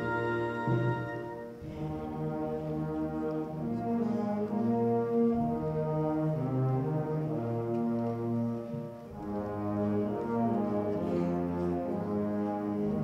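Music: brass instruments playing slow, held chords that change every few seconds.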